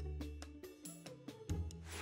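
Light background music: low bass notes with sustained tones and soft percussion ticks, and a short rush of noise near the end.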